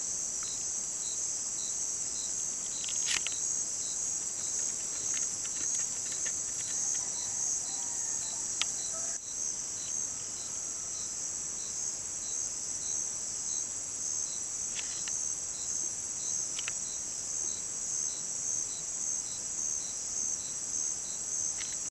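Night insect chorus: a steady high-pitched buzz with a regular pulsing chirp about twice a second, and a few faint clicks.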